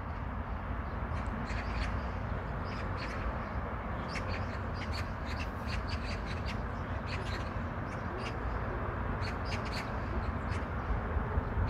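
Birds calling with many short, sharp notes scattered throughout, over a steady low rumble of wind or distant background noise.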